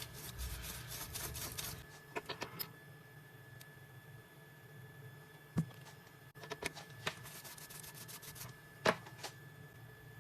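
Scattered light clicks and short rattles from the key clamp and key being handled on a CNC key cutting machine, with a dense run of clicking in the first two seconds and sharper single clicks near the middle and near the end.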